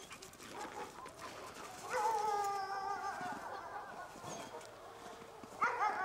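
German Shepherd dog whining: one long whine of about two seconds that falls slightly in pitch, then a shorter, wavering whine near the end.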